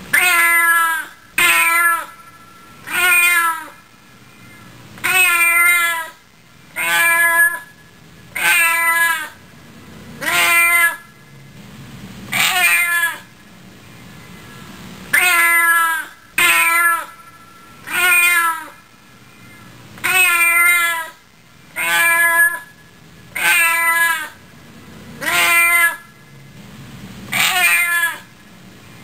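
A domestic cat meowing over and over, one meow every one to two seconds, each call rising and then falling in pitch.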